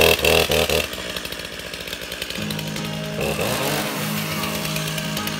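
Gas chainsaw revved in a few quick throttle blips, then dropping back to a steady idle about a second in.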